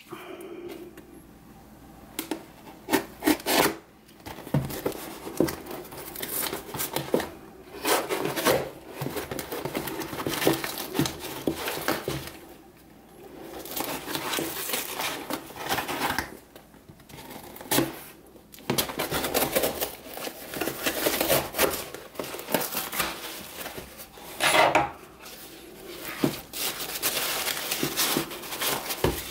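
Cardboard shipping box being cut open with a folding pocket knife: the blade slicing through tape, cardboard scraping and rubbing, and the flaps pulled open, in irregular spells with short pauses between.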